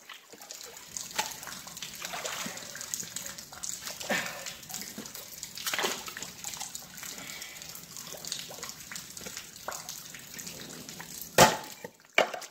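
Shallow river water sloshing and splashing as a magnet-fishing magnet on a rope is dipped and worked among the rocks, with two sharp knocks near the end.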